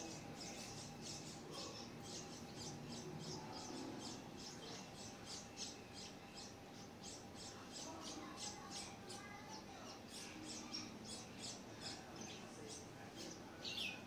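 Red-whiskered bulbul nestlings begging for food at the nest: a rapid, unbroken series of thin, high squeaks, several a second.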